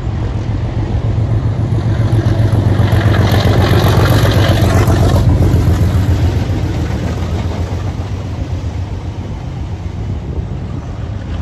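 English Electric Class 37 diesel locomotive passing close by under power. Its engine's low thrum builds to its loudest a few seconds in as it goes by, then eases as the hauled coaches roll past on the rails.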